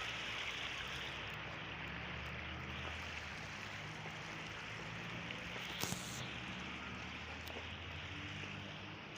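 River water rushing steadily, an even hiss with a low steady hum beneath it. A single sharp knock about six seconds in.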